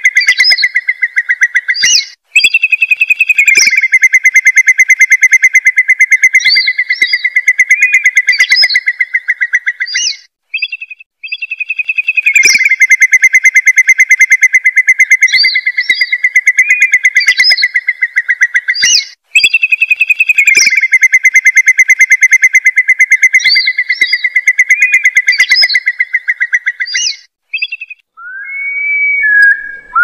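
Looped lure recording of a curlew's ('gajahan') call. Long, fast bubbling trills hold a steady pitch, with short rising whistled notes on top, and repeat in near-identical phrases about every seven seconds with brief breaks.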